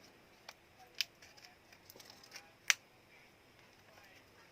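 A few sharp clicks and light taps, the loudest about a second in and just under three seconds in: small tools and parts of a Samsung Galaxy A02s smartphone being handled as it is taken apart.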